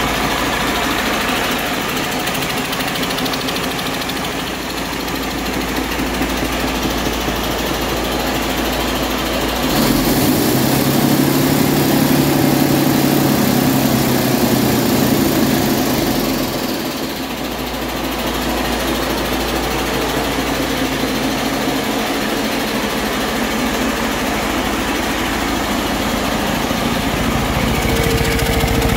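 A 2019 Detroit Diesel DD15 inline-six diesel engine running on a test stand, idling steadily. It gets louder for several seconds in the middle, then settles back to its earlier level.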